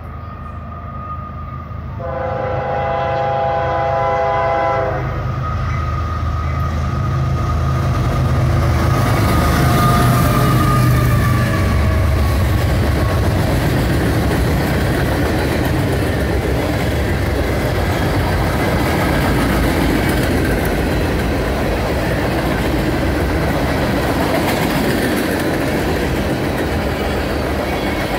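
A CSX freight train with two GE Evolution-series diesel locomotives: the horn blows a long blast that ends about five seconds in, the locomotives' diesel engines pass by loud and low, and a long string of freight cars rolls past with steady wheel-on-rail noise.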